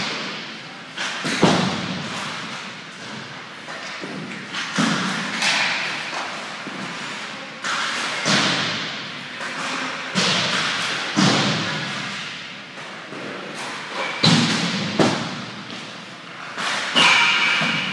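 Ice hockey shooting drill in an echoing indoor rink. Sharp cracks of a stick hitting a puck and thuds of pucks striking the goaltender's gear repeat every one to three seconds, often in quick pairs. Scraping on the ice runs between them.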